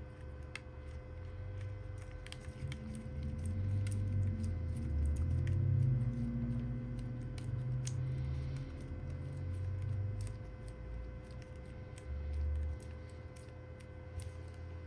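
Small clicks and taps of hands and tools handling a smartphone on a workbench, with irregular low rumbling bumps, loudest in the middle, over a steady electrical hum.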